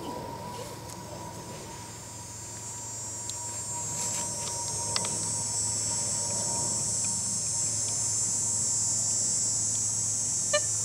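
Insects buzzing in a steady high-pitched drone that swells up about four seconds in and then holds, over a faint low steady hum.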